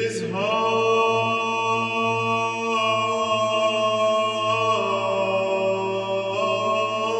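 Background chant music: a steady low drone under long held notes that move to new pitches every second or two.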